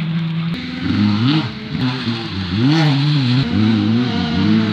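Rally car engine revving hard as it drives the stage, its pitch rising and dropping several times as the driver goes on and off the throttle.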